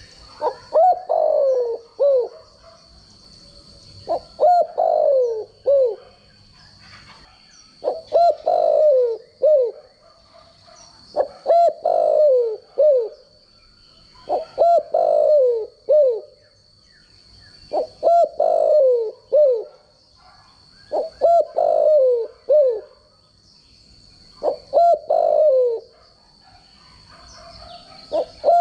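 Spotted dove cooing, repeating the same short phrase of a few notes about every three and a half seconds, with the longest note falling in pitch. A faint steady high whine runs underneath.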